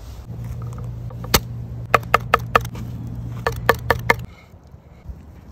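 Knife chopping fresh parsley on a wooden cutting board: one sharp chop, then two quick runs of four chops each. A low steady hum runs underneath and stops about four seconds in.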